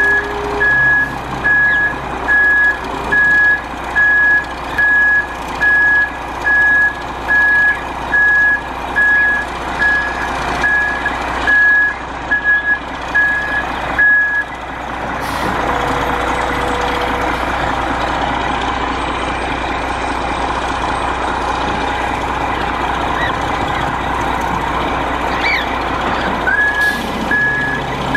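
Cement truck's reversing alarm beeping, a steady high tone about once a second. About halfway the beeping stops for roughly twelve seconds, leaving the truck's steady running noise, then starts again near the end.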